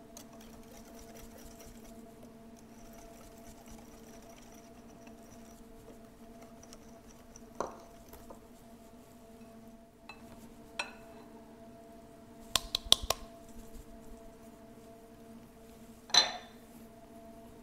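Utensils clinking against a mixing bowl as flour is added to gingerbread batter and stirred in: a few scattered knocks, a quick run of clinks about two-thirds through, and a sharper ringing clink near the end, over a faint steady hum.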